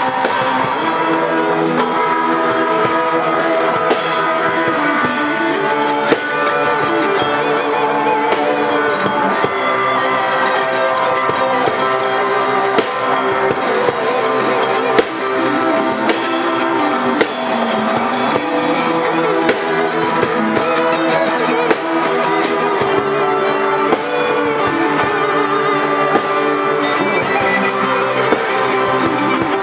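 Instrumental band music: guitars play a melody with bent notes over a drum kit keeping a steady beat with cymbal hits.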